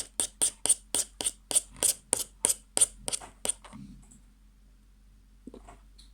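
Slime being kneaded and squeezed by hand, giving a quick, regular series of sharp clicks and pops, about three to four a second, that stop a little past halfway.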